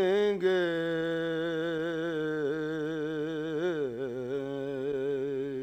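A man singing a naat as a solo voice, drawing out the last word of a line, "karenge", into one long held note with a wavering vibrato. The pitch steps down about four seconds in, and he holds the lower note.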